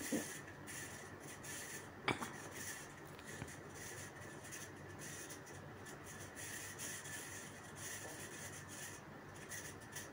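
Faint rubbing and scraping of a metal fork moved through onion pickle on a plate, with one sharp click about two seconds in.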